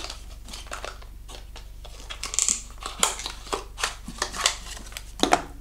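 Small paperboard product box being opened by hand: irregular clicks, taps and scrapes of the card flaps and the packaging inside, with a brief rustle midway and the loudest click near the end.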